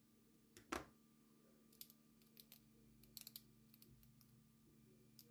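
Faint small clicks and taps as small 3D-printed plastic figure parts and a thin metal pin are handled and fitted together. The sharpest click comes under a second in, followed by a scattered run of lighter clicks over a low steady hum.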